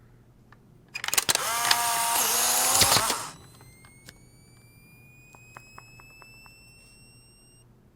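Polaroid instant camera taking a picture: a shutter click, then about two seconds of loud motor whirring as the print is pushed out. Then the flash recharges with a thin, high whine that rises slowly for about four seconds.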